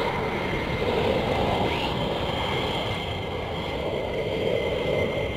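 Jet noise from a twin-engine two-seat F-15 fighter landing and rolling out on the runway: a steady rumble with a steady high-pitched whine over it.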